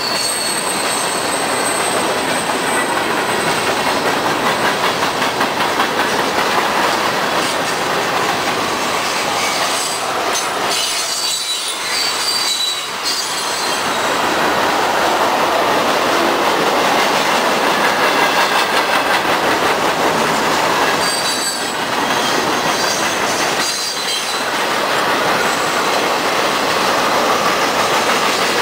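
Norfolk Southern manifest freight train rolling past: a steady rumble of covered hoppers, tank cars and boxcars on the rails, with rhythmic clacking over the rail joints and high thin squeals from the wheels coming and going.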